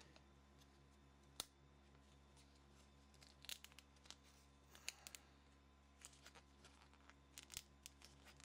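Faint crackles and ticks of a boiled, softened plastic layer being peeled by hand off a credit card's metal core: one sharp tick about a second and a half in, then irregular clusters of small crackles.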